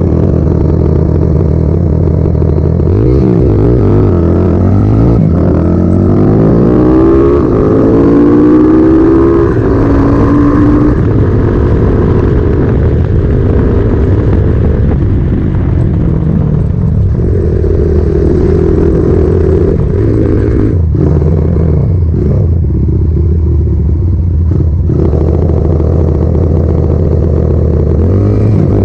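Single-cylinder engine of a Honda Megapro bored up to 250 cc, running steadily, then pulling away hard a few seconds in with its pitch climbing for several seconds. It settles into a steady run and picks up again briefly later on.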